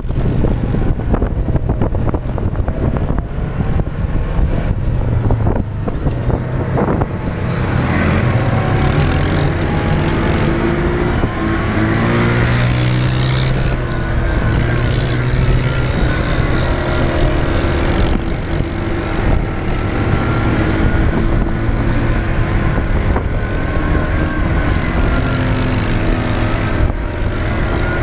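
Dune buggy engine running while driving, heard from on board, its note rising and falling with the throttle. Wind noise and rattling sit under it, and for the first several seconds the rough rumble and rattle outweigh the engine note.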